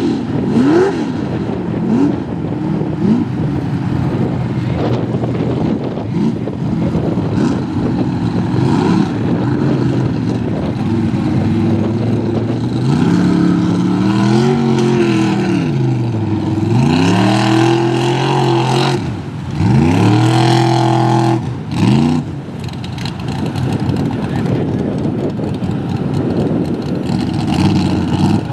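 Mud-bog truck engine revving hard, the pitch repeatedly climbing and dropping as the throttle is worked. Near the middle come the strongest revs: a high held note that cuts off suddenly.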